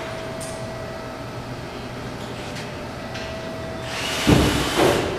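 Steady workshop background hum, then about four seconds in a loud burst from a power tool lasting about a second, with a knock near its start.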